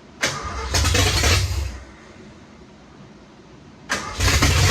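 1986 Ford F150's 302 V8 being cranked twice in short bursts, each opening with a sharp click, the engine catching a little but not running. The owner puts the failure to run down to the timing being off.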